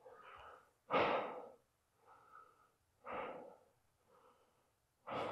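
A person breathing out heavily three times, about two seconds apart, each breath a soft rush of air.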